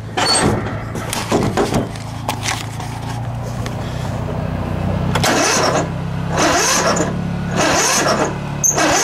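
Lawn tractor engine being cranked by its electric starter on full choke, powered from a jump pack: a steady churning hum with louder surges about once a second in the second half. The engine does not catch.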